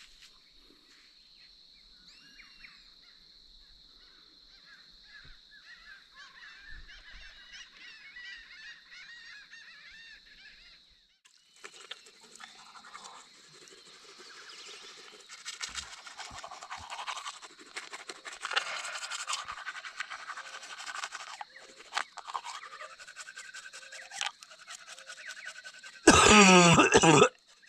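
Birds chirping and calling over a steady high insect drone; the calls thicken after about eleven seconds. Near the end comes a loud pitched call lasting about a second and a half.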